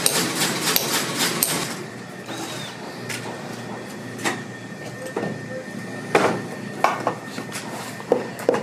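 Cobbler's hammer striking a new rubber heel onto a boot's stacked heel on an iron last: a fast run of strikes in the first second and a half, then a handful of single taps.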